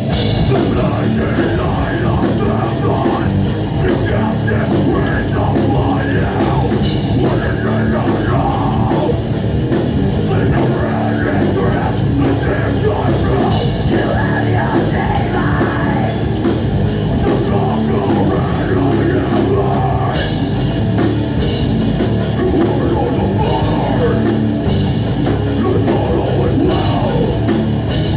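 Heavy metal band playing live at full volume, with distorted guitars and a drum kit.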